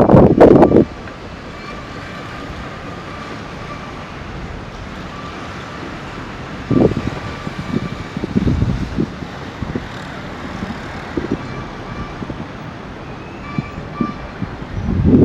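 Strong wind gusts buffeting the microphone, dropping off sharply less than a second in to a lull with a steady low background hum. Short gusts return in the middle, and the wind picks up hard again near the end.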